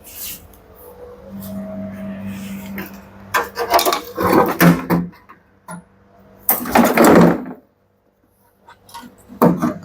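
Plastic parts of a washing machine being handled and worked loose: irregular bursts of scraping, rubbing and knocking. A low hum runs for a couple of seconds from about a second in, and a few light clicks come near the end.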